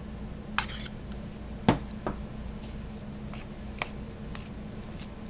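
Refried beans being scraped out of a small bowl into a plastic mixing bowl: soft squishing with a few sharp knocks of the spoon and bowl rims, the loudest nearly two seconds in.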